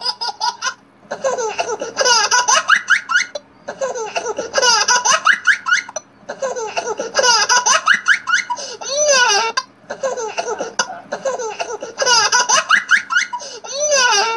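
High-pitched laughter in about eight repeated bursts, each a second or two long, with short pauses between them.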